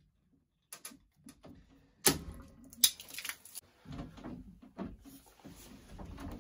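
Hands working rigid PVC water pipes and a red-handled ball valve: scattered light clicks, then two sharp knocks about two and three seconds in, followed by softer handling noise.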